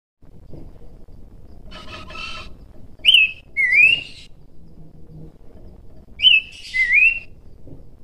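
Horsfield's babbler singing: a short harsh note, then a clear whistled phrase given twice. Each phrase is a brief high falling whistle followed by a lower whistle that dips and then rises.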